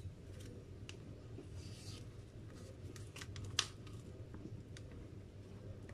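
Faint clicks and light knocks from a plastic butter tub being handled and tipped over a plastic mixing bowl, the sharpest about three and a half seconds in, over a steady low hum.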